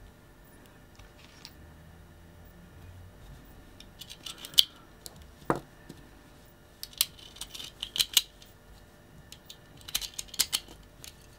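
Marushin Walther PPK model gun being worked by hand: three clusters of sharp clicks and clacks a few seconds apart, as the hammer is dropped and the slide is racked to eject dummy cartridges. A single ringing knock follows the first cluster.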